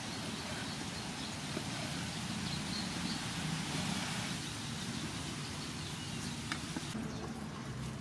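Steady outdoor background noise, with a few faint clicks in the second half from a cleaver slicing raw beef on a wooden chopping board.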